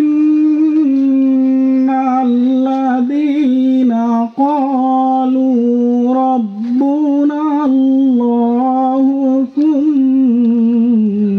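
A single voice reciting the Quran in a melodic chant, with long held notes and small ornamented turns, unaccompanied.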